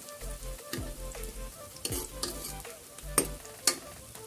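Sliced onions sizzling in hot oil in a metal kadhai as they brown, stirred with a steel ladle that scrapes and knocks against the pan several times, the sharpest knocks about two, three and three and a half seconds in.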